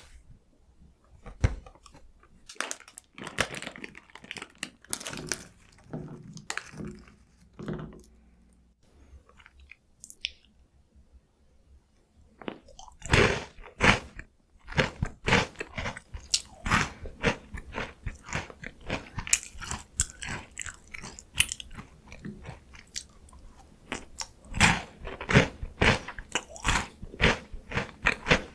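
Close-miked eating of crunchy chocolate snacks: a few scattered small crunches at first, then from about twelve seconds in, loud bites and rapid crunchy chewing.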